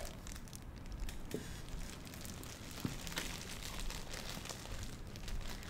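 Plastic wrapper of a rice ball crinkling as it is unwrapped by hand, in light, scattered crackles.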